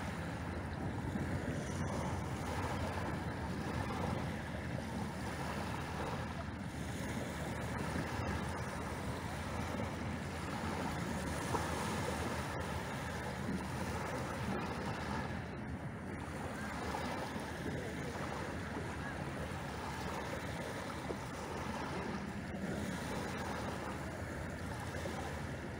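Small waves breaking and washing on a pebble beach: a steady wash of surf.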